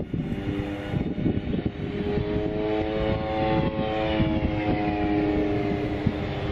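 Boeing 777 jet engines on a landing pass, giving a steady whine that falls slowly in pitch over a deep rumble. Wind buffets the microphone.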